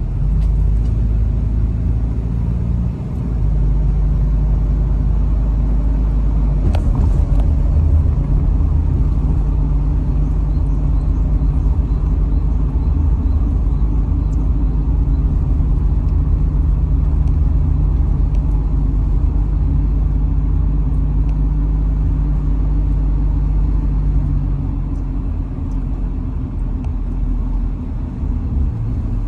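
Car driving along a road: a steady low rumble of engine and tyre noise heard from inside the car, easing slightly in the last few seconds.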